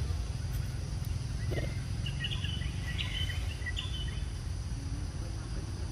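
Steady low outdoor rumble, with a short cluster of high chirps about two seconds in that lasts roughly two seconds.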